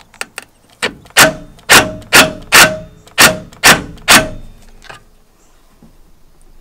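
An 18-volt DeWalt cordless driver run in short bursts to drive a bolt into the supercharger's metal adapter plate. A smaller hit is followed by seven loud, sharp metallic bangs about half a second apart, each ringing briefly, and they stop after about four seconds.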